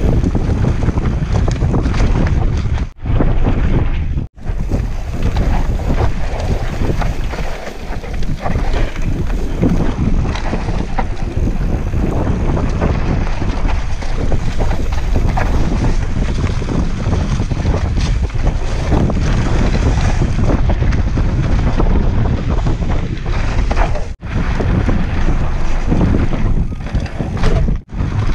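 Wind buffeting the microphone of a camera riding down a forest trail on a mountain bike, a loud, steady rumble with trail noise mixed in. It drops out sharply for a moment a few times.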